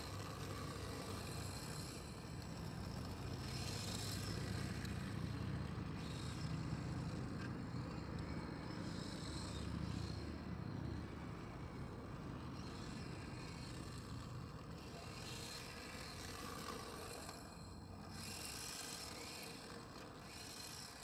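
Electric RC drift car sliding around cones on asphalt. A faint motor whine and tyre scrub swell several times as the car passes near, over a low rumble that is loudest in the first half.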